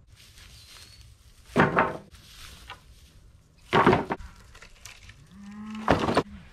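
Old wooden boards clattering as they are dropped onto a pile, three times about two seconds apart. A cow moos near the end, under the last clatter.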